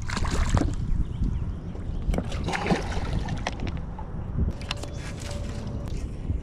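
Wind rumbling on the microphone aboard a boat on open water, with water sloshing and a few light knocks and clicks.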